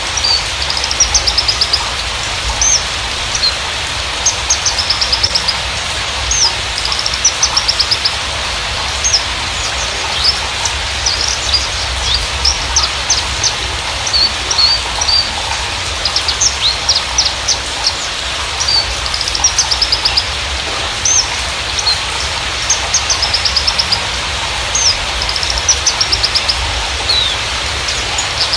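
Australasian bushlark (Mirafra javanica parva) singing: quick runs of short, high chirps and trills, one phrase after another with brief gaps, over a steady hiss.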